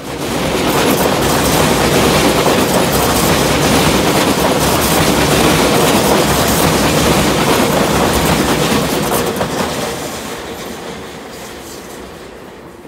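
A Tobu Railway limited express electric train (200/250 series) running through a station at speed. Its wheels rumble and clatter on the rails, rising sharply as it arrives and fading after about nine seconds as the last cars pass.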